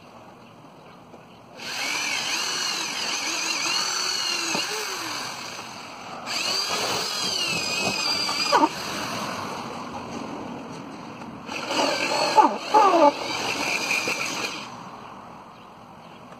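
Electric drill boring down through a wooden pallet into a car's roof cross members, in three runs. The motor's whine dips and rises in pitch as the bit loads up, with a few sharp clicks in the second and third runs.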